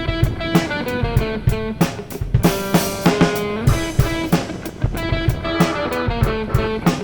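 Background music: a band track with plucked guitar over a steady drum-kit beat.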